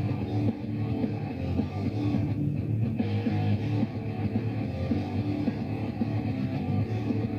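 Rock music: an instrumental passage with guitars and a steady beat, no singing.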